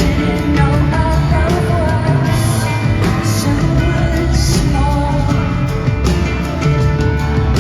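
Live rock band playing a song, with a woman singing over drums and bass.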